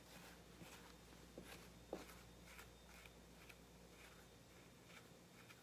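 Near silence, with faint, repeated brushing strokes of a plastic comb drawn through a taxidermy bobcat's damp fur, about two a second, and a couple of small clicks about one and a half to two seconds in.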